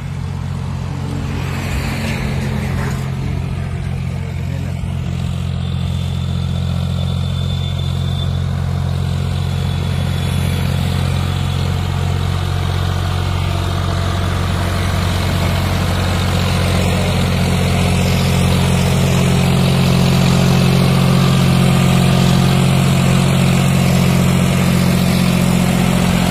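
John Deere 5050 D tractor's three-cylinder diesel engine running steadily under load while pulling a fully loaded trolley, growing gradually louder as it approaches and passes close by.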